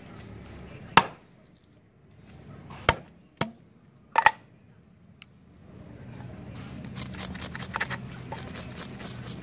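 A cleaver chopping through a fish onto a wooden chopping board: five sharp chops, the loudest about a second in and the last two in quick succession. From about six seconds in, a knife blade scrapes rapidly along the fish's body, a dense run of small scratchy clicks, as the scales are scraped off.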